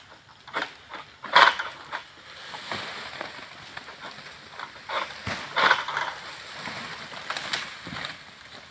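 A long-pole harvesting sickle cutting into oil palm fronds: a series of irregular crunching, rustling strokes, the loudest about a second and a half in and again near six seconds.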